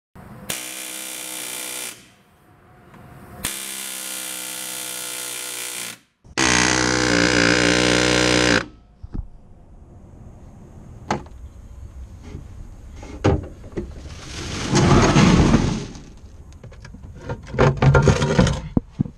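Pneumatic air hammer running in three bursts of about two seconds each, peening aluminium boat rivets against a steel bucking block so they expand and seal the hull. Scattered sharp knocks and handling clicks follow.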